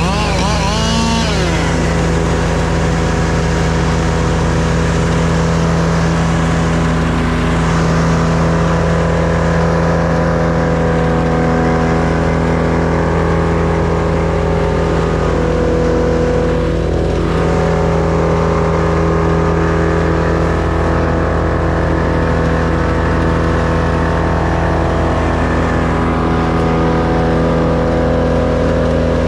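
An engine running steadily at near-constant speed, loud and close, with little change in pitch.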